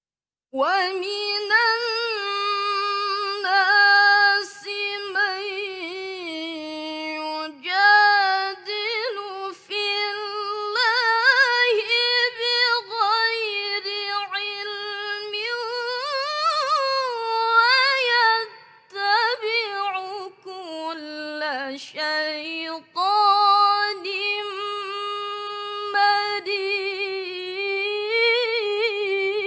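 A teenage girl reciting the Quran in the melodic mujawwad tilawah style: long, held, richly ornamented notes with a wavering pitch, broken by a few brief pauses for breath.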